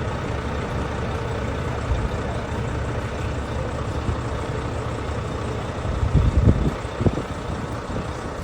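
Shuttle bus engine running steadily with a low rumble, with a few heavier low thumps about six to seven seconds in.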